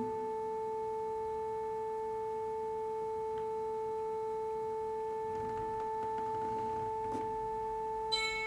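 Ambient drone music: a few steady, pure-sounding tones held unchanging, with a bright plucked note striking in near the end.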